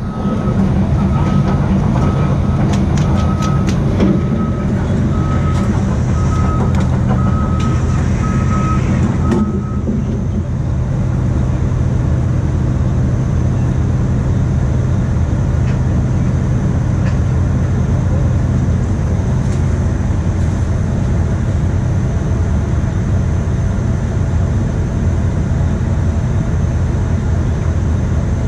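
A vehicle engine runs with a steady low rumble. Over it a backup alarm beeps about once every 0.7 seconds, then stops about ten seconds in.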